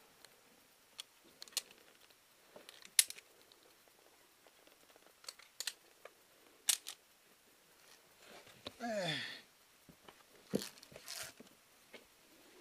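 Scattered sharp clicks and knocks of via ferrata carabiners and climbing gear against the steel cable and rock, about a dozen, the loudest about three seconds in and again near seven seconds. A brief tone falling in pitch comes about nine seconds in.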